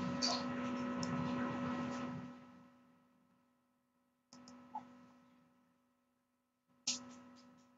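Faint steady electrical hum with hiss, fading away about two and a half seconds in. It cuts back in abruptly twice, each time with a few sharp computer mouse clicks, then fades again.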